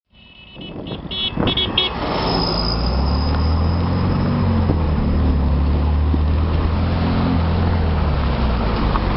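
Vehicle engine running with a steady low drone, preceded by a few short high-pitched beeps in the first two seconds.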